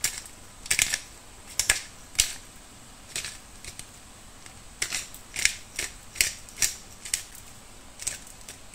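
Squid and adobo sauce crackling in a hot steel wok: irregular sharp pops and spits, about two a second, over a faint steady hiss.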